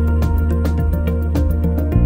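Background music: held chords over a steady, quick ticking beat.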